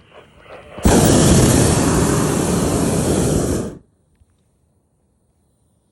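Hot air balloon's propane burner firing in one steady blast of about three seconds, starting abruptly about a second in and cutting off sharply.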